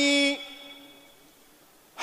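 A man speaking: the end of a drawn-out word that fades away over about a second, then a short pause.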